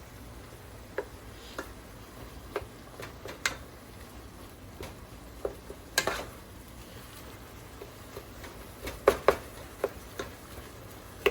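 A cooking utensil knocking and scraping against a pot while ground turkey, onion and garlic are stirred, over a faint steady sizzle of the meat frying in oil. The knocks come irregularly, the loudest about six seconds in and two close together about nine seconds in.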